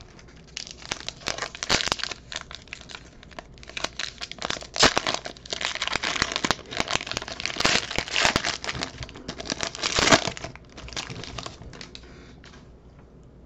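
Foil wrapper of a Panini Prizm baseball card pack crinkling and crackling as it is handled and torn open, a dense run of rustling for about ten seconds, loudest near the middle and again just before it stops. Faint handling of the cards follows near the end.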